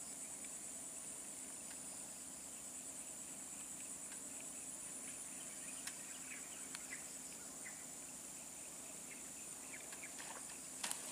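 Steady high-pitched chorus of insects, with a few faint short chirps scattered through it and two sharp clicks near the end.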